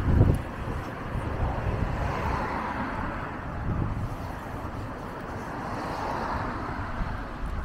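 Street ambience in wind: a steady hiss of wind and passing traffic that swells and fades every few seconds, with wind buffeting the microphone as a low rumble, strongest at the start.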